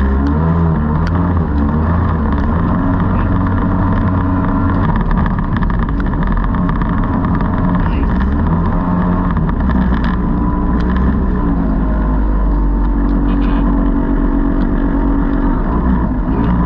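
Kingfisher jet boat's engine running steadily under way upriver, its note shifting a little in pitch, with water rushing past the hull.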